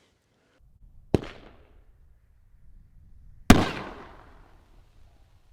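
Two firework bangs about two and a half seconds apart; the second is louder and trails off in a rolling echo.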